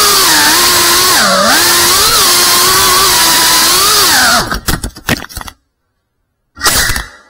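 FPV racing drone's brushless motors and propellers whining loudly, the pitch rising and falling with the throttle. About four and a half seconds in, the whine breaks into a few crackles and cuts off, and a short burst of motor noise comes near the end.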